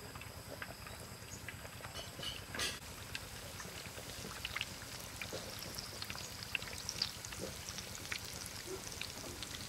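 Battered potato-and-chicken pieces deep-frying in a wok of hot oil: a steady sizzle with many small pops and crackles, and one sharper crack about two and a half seconds in.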